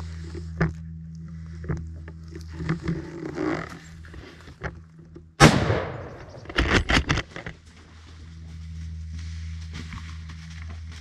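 A single gunshot about five and a half seconds in, sudden and loud with a short ringing tail, followed about a second later by a quick run of sharp knocks and clatters. Softer rustling comes before the shot.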